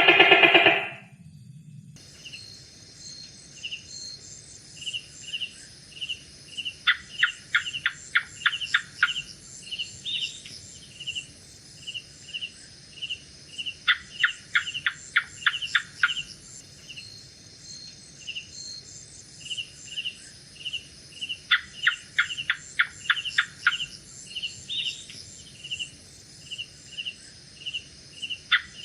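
Gecko chirping in quick runs of sharp clicks, three bursts of about two seconds each, over night insects trilling steadily with a regular short chirp about twice a second. A loud pitched call cuts off about a second in.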